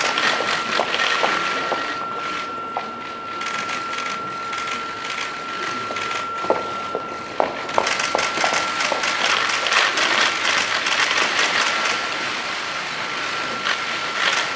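Many camera shutters clicking in quick, overlapping bursts, thickest in the second half, over a steady background hiss and a faint steady high tone.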